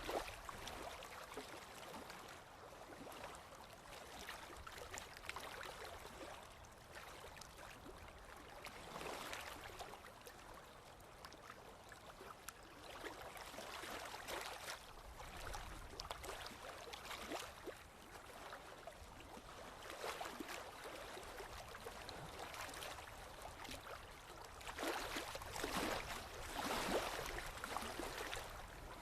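Forest river water flowing steadily, its rush rising and falling, with a louder stretch for a few seconds near the end.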